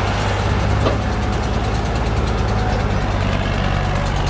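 Massey Ferguson 240 tractor's three-cylinder diesel engine running steadily with a low, even note.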